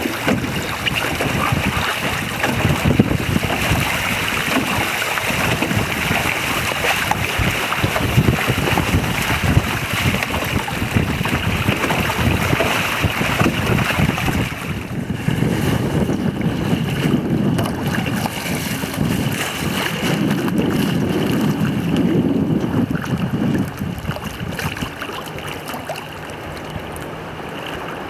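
Wind buffeting the microphone over water rushing and splashing along the hull of a small sailing proa under way. The hiss thins out about halfway through, and the sound gets quieter near the end.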